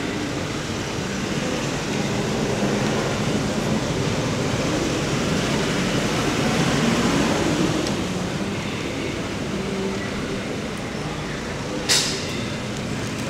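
Steady outdoor background noise with a low rumble that swells about halfway through and then eases, and one short sharp click near the end.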